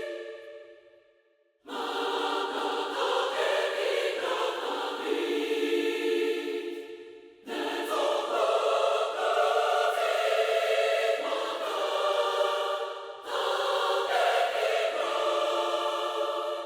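Mixed choir singing long held chords in phrases. A phrase dies away in the first second and a half, then new phrases enter about 2, 7.5 and 13 seconds in, and the last fades out at the end.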